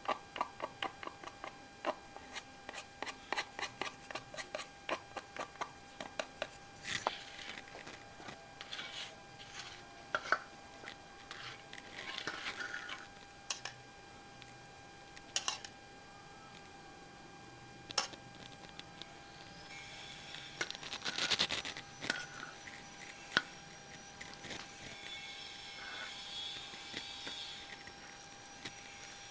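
Rapid tapping and scraping of a spatula and stone pestle in a stone mortar (cobek) as soft potato mixture is mashed, about four strokes a second for the first six seconds. After that come scattered knocks and scrapes of spoon and spatula against the mortar and bowls.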